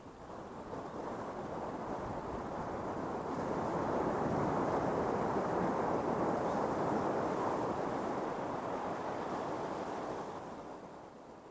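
Ocean surf breaking on a sandy beach: one wave's rush builds over a few seconds, holds, then fades near the end, with wind buffeting the microphone.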